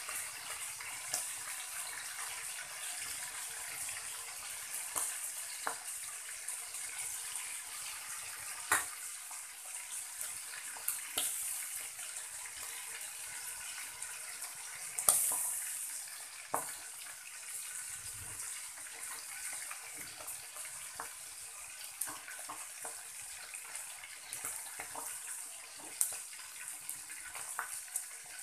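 Pork steak frying in oil in an aluminium wok: a steady sizzle with scattered pops and crackles, the loudest pop about fifteen seconds in.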